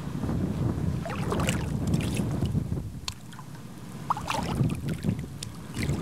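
Water sloshing and splashing close to the microphone, in irregular surges with scattered small clicks and knocks.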